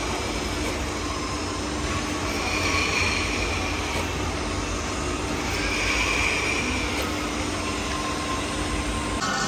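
Steady machinery noise in a metalworking workshop, with a low, constant hum and a hiss that swells a little about three seconds in and again about six seconds in.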